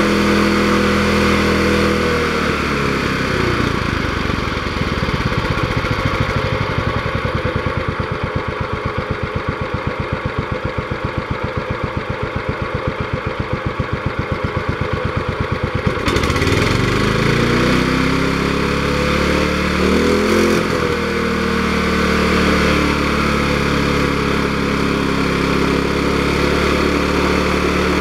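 Rebuilt 1998 Toro 30197 walk-behind mower's engine on its first good test run: running at speed, slowing about two seconds in to a slow idle with each firing beat distinct, then revving back up about 16 seconds in, surging briefly a few seconds later, and running steady at speed.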